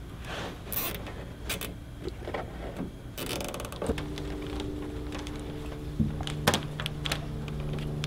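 Small clicks and handling noises of a cable being fastened to a car's wiring harness with a plastic zip tie, with a short ratcheting rasp about three seconds in. From about four seconds a steady low hum of several held tones starts underneath.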